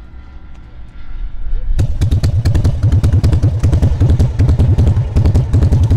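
Harley-Davidson V-twin motorcycle engine running loudly with a rapid pulsing beat. It comes in suddenly about two seconds in.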